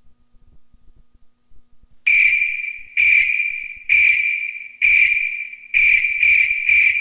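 A high electronic ping opening a radio show's intro jingle: after about two seconds of faint hum it strikes about once a second, each ping fading away, then quickens to about three a second near the end.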